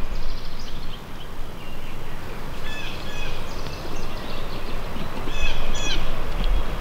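Turkey yelps in two short series: two notes about three seconds in and three more near the end, over a steady low rumble.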